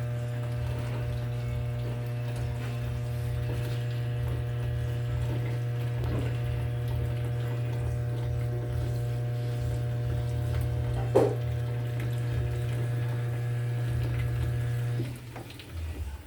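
Consul 15 kg washing machine with water running through it and a steady electric hum from its pump or fill valve, which cuts off about fifteen seconds in. A single sharp knock sounds about eleven seconds in.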